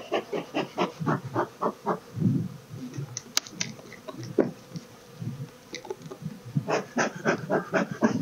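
Beekeeper's bellows smoker being puffed at a hive in quick runs of short puffs, about five a second, at the start and again near the end, with honeybees buzzing around the hive and one sharp click a little past three seconds in. The smoking readies the colony to be opened for inspection.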